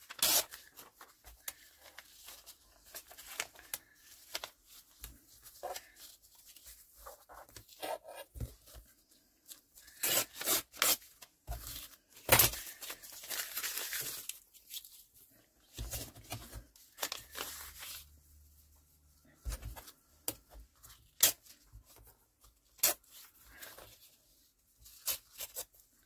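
Paper being torn by hand in a series of short rips to make straight torn edges, with rustling of the paper between them and a couple of low thumps on the table.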